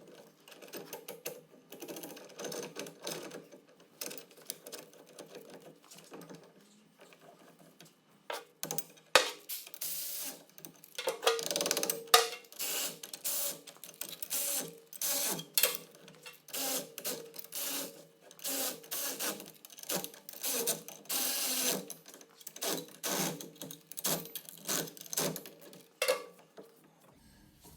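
Metal clicking and clinking of a 3/4-inch drive ratchet and a hub puller as the puller is bolted to the wheel studs and tightened down, in irregular runs of rapid clicks. It gets louder about a third of the way in.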